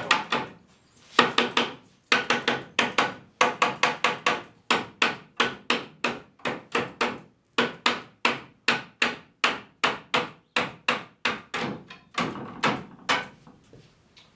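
A quick, even series of sharp strokes on wood, about three a second, with a short break about seven seconds in.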